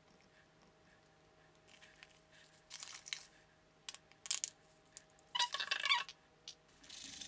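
Handling noise of plastic bottles and gloved hands as hair developer and dye are poured and squeezed into a plastic mixing bowl: a few short rustles and clicks, with the loudest, a crinkly squeak, about five and a half seconds in. The first couple of seconds are nearly quiet.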